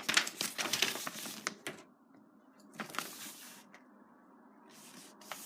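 Toy packaging being handled, crackling and crinkling in three bursts: a long one at the start, another about three seconds in and a weaker one near the end.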